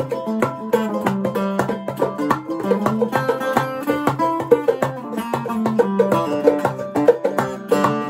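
Live string-band music: an archtop hollow-body guitar played along with other plucked string instruments, a busy run of quickly picked notes over a steady bass line.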